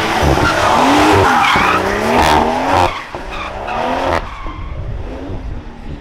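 Car drifting with its engine revving hard and its tyres squealing. The sound cuts off abruptly about three seconds in, returns for a short burst, and drops off again after about four seconds.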